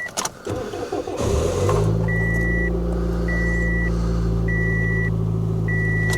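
A car's engine is started cold after a hard freeze: it catches about a second in and settles into a steady idle. A dashboard warning chime beeps about once a second over it.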